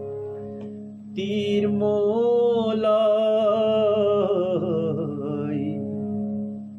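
A man singing one long, wavering held note over a steady harmonium drone; the voice comes in about a second in and drops away near the end, leaving the drone.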